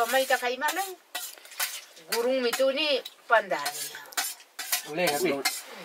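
A steel spoon clinking and scraping against a steel plate and bowl in quick, irregular clicks as someone eats, with a woman's voice talking in short phrases between the clinks.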